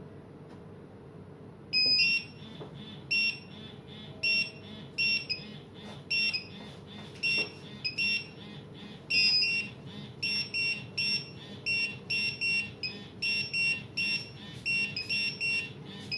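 CTP320 wireless restaurant pager sounding its call alert: short, high-pitched electronic beeps repeated in uneven groups, starting about two seconds in, over a low steady background hum.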